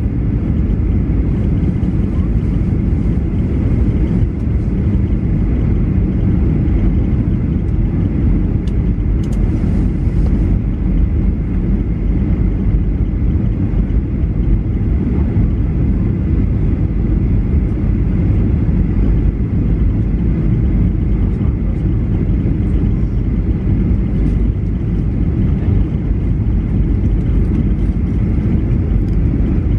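Steady cabin noise inside a Boeing 737-800 descending on approach: the CFM56 turbofans and the rush of air over the fuselage make a heavy, even drone, strongest in the low end.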